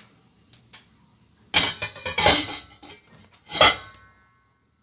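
Metal spoon stirring shredded white radish in a glass bowl: a few light clicks, then a scraping stretch, then a sharp clink against the glass about three and a half seconds in that leaves a brief ringing tone.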